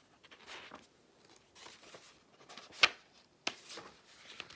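Pages of a hardcover picture book being turned and smoothed flat by hand: soft paper rustles and swishes, with a sharp tap a little under three seconds in and another about half a second later.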